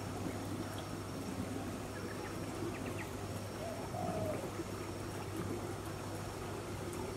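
Tropical garden ambience: a steady bed of noise with a constant low hum, faint chirps, and one short low bird call that rises and falls about four seconds in.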